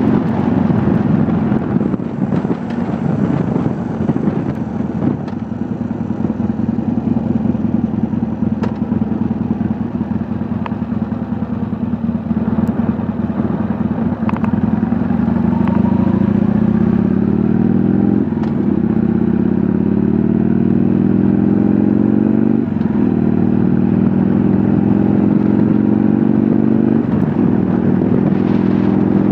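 Harley-Davidson V-twin motorcycle engine running under way, heard from on the bike. In the second half it pulls harder, its pitch climbing, dropping back briefly about 18 and 23 seconds in, then climbing again, as it is shifted up through the gears.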